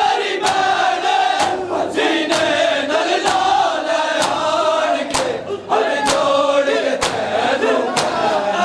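A crowd of men chanting a nauha (mourning lament) in unison, while the whole group beats their chests with their bare hands (matam). The strikes land together in a steady beat, about one a second.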